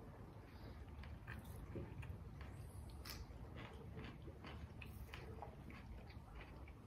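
Faint chewing and biting of bread and sausage, with small irregular mouth clicks.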